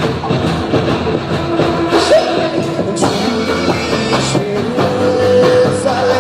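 A rock band playing live with a lead vocal, guitars and drums, the singer holding one long note near the end.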